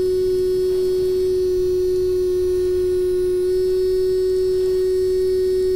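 Small electric water pump in an RC fire truck running with a steady, high-pitched motor whine. It pushes only a weak trickle, which the builder puts down to trapped air in the water system or a loose pipe connection.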